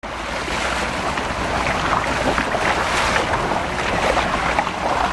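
Open-sea boat ride: wind buffeting the microphone and choppy water rushing and splashing against a small moving boat, over a low steady hum.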